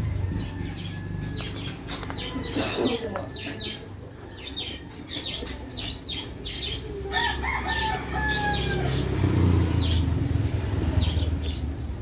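Rooster crowing once, a long call about seven seconds in, over a low steady rumble and scattered short high chirps.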